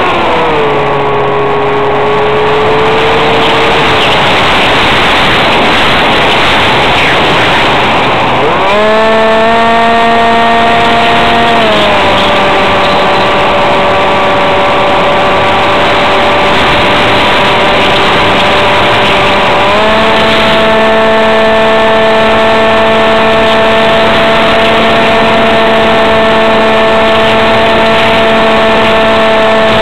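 ParkZone F-27B Stryker's brushless electric motor and propeller whining over heavy wind rush on the onboard camera. The pitch falls as throttle is cut at the start, leaving mostly wind, climbs back about nine seconds in, dips again around twelve seconds, and rises to a steady higher whine about twenty seconds in.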